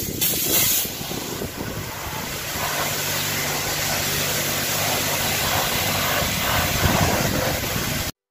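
High-pressure jet-wash lance spraying water onto a van's bodywork: a steady hiss, with a low hum joining in for a few seconds partway through.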